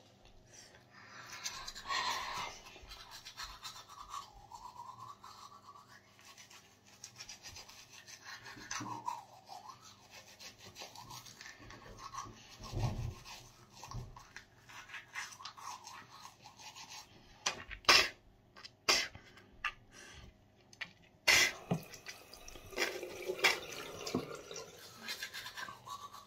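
Manual toothbrush scrubbing teeth, an uneven back-and-forth brushing sound, with a few sharp knocks about two-thirds of the way through.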